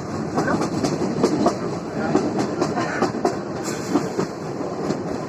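Kalka–Shimla narrow-gauge toy train running, its wheels clicking and clattering irregularly over the rail joints against a steady running noise.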